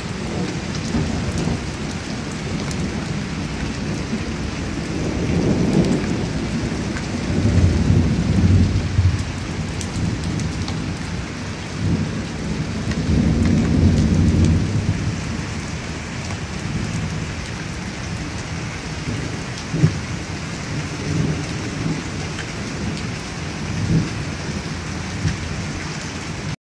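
Rain falling steadily through a thunderstorm, with thunder rumbling: a long low rumble builds about five seconds in and lasts several seconds, and another comes around thirteen seconds. Near twenty seconds there is a short, sharp crack.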